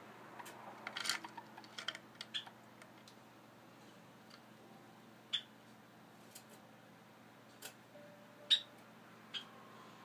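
Sharp little clicks and taps from an agitated Java sparrow on a wooden nest box. There is a quick run of clicks about a second in, then single clicks every second or so.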